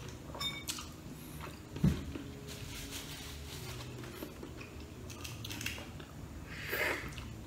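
A balut (boiled fertilized duck egg) being handled and peeled, with small crackles and clicks of shell and close-up chewing. A dull knock comes about two seconds in, and a short slurp near the end as the egg is held to the lips.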